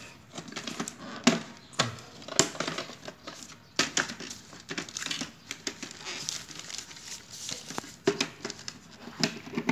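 Hard plastic parts of a Canon iR 1024 photocopier developing unit clicking and knocking irregularly as they are handled and pried apart, with newspaper rustling underneath.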